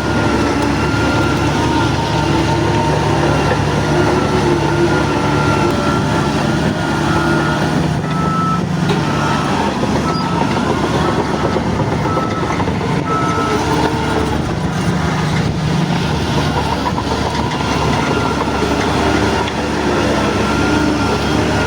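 Shantui DH17 bulldozer's diesel engine running steadily under load, with its steel crawler tracks clanking. A high repeated beep sounds for several seconds midway.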